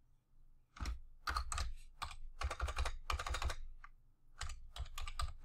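Typing on a computer keyboard: quick runs of keystrokes starting about a second in, with a short pause near the four-second mark.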